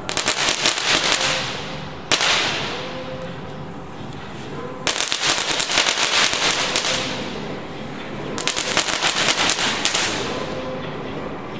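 Enigma Fireworks 'Dragon Eggs' crackling ground firework going off in three bursts of rapid, dense crackles, each lasting about two seconds, with lulls between them and a single sharp crack about two seconds in that fades away.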